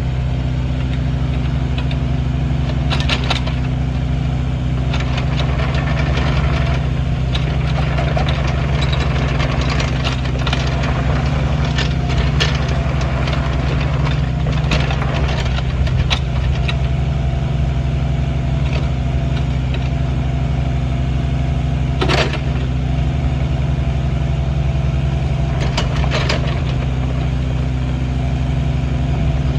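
Kubota U48-4 midi excavator's diesel engine running steadily, with several sharp knocks through the clip.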